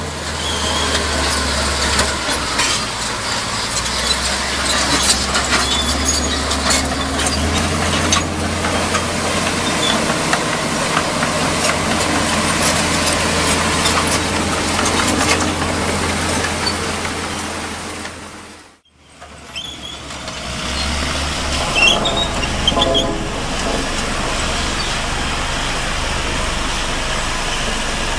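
Heavy diesel construction machinery running, with frequent metallic clanks and rattles. The sound fades out briefly about two-thirds of the way through, then resumes.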